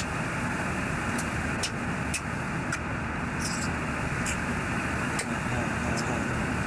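Steady mechanical running noise inside an Oberon-class submarine, an even drone with a few faint, scattered ticks on top.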